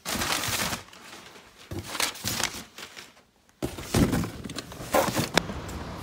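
Brown paper packing rustling and crinkling as it is pulled away from a cardboard box by hand, in several separate bursts of handling noise.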